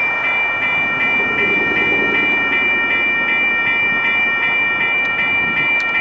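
Railroad crossing WCH electronic bells (E-Bells) ringing their synthesized ding at about three strikes a second over a steady high ring, signalling the crossing is active for an approaching train. A low rumble of the oncoming freight train runs underneath.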